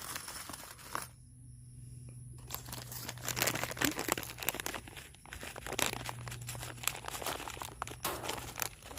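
Rustling and crinkling handling sounds with many scattered light clicks. The noise drops away briefly about a second in, then picks up again.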